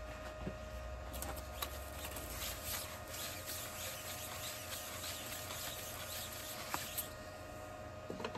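Gloved hands handling a stopped lathe chuck and a machined steel plate: soft rustling and scratching with a few light clicks, over a faint steady hum.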